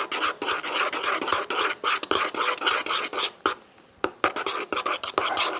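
Glitter-glue slime being stirred: fast, irregular scraping and sticky clicking, with a short pause about four seconds in.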